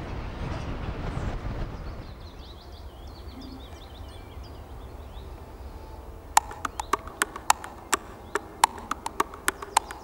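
Sharp wooden knocks with a short ringing pitch, about three a second, starting about six seconds in, after a rumbling noise that fades in the first two seconds.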